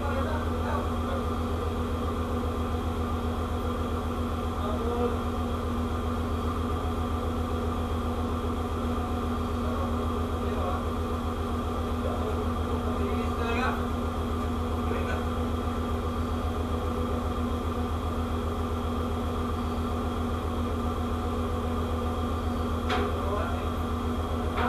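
Steady drone of a ship's machinery: a constant low hum with several steady tones above it, unchanging throughout.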